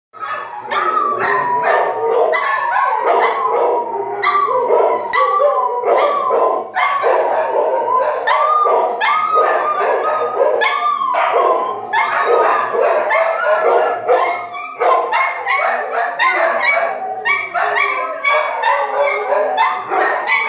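Pet dogs howling together in a continuous chorus, the pitch gliding and wavering, mixed with yips and barks.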